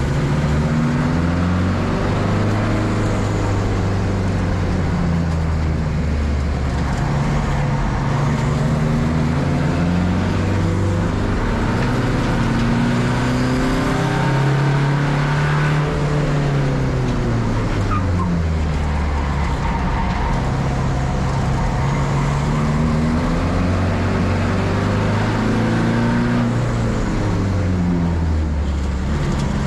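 Volkswagen Polo Cupra TDI race car's turbodiesel engine running hard on track. The pitch rises as it accelerates and drops as it lifts and brakes, over and over through a series of corners.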